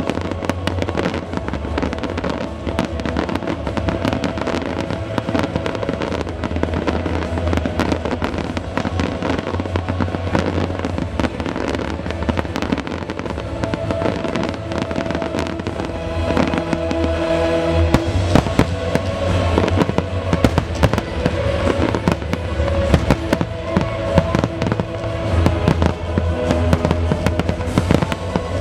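Fireworks display going off continuously: many rapid bangs and crackles, growing denser and louder about two thirds of the way through, over music played for the show.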